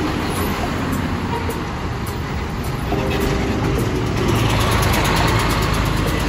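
Road traffic with city buses passing close by, their engines running; the noise swells about four and a half seconds in as a bus goes past.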